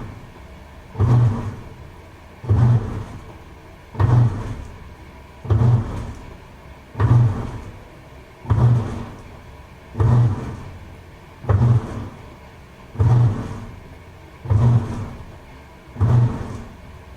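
Toshiba AW-42SEE4 top-loading washing machine agitating its wash: the motor drives the pulsator in a regular stroke about every second and a half, each a sudden hum with a swish of water that fades before the next.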